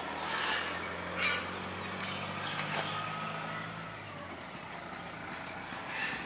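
A steady low motor hum, like an engine running, that fades out about four seconds in, with a few brief higher-pitched sounds over it.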